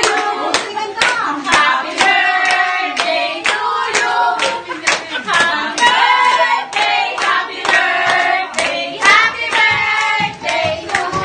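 Several people singing together with rhythmic handclaps, about two claps a second.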